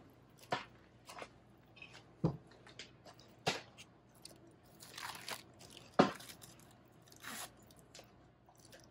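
Spoon mashing avocado in a bowl for guacamole: irregular knocks and scrapes of the spoon against the bowl, the sharpest knock about six seconds in.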